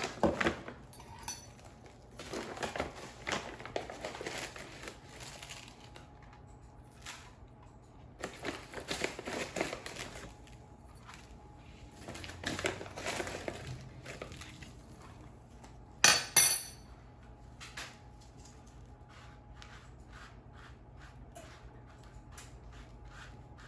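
Brown sugar being sprinkled over a tortilla on a dish, heard as several one-to-two-second bursts of scraping and rustling. About sixteen seconds in comes one sharp knock against a dish, the loudest sound, followed by light ticks.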